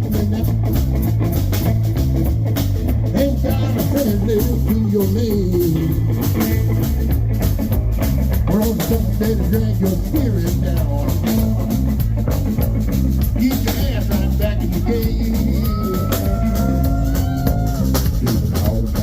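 Live blues-rock band playing an instrumental break in a boogie shuffle: a steady drum-kit and bass groove, with a bending electric guitar lead over it.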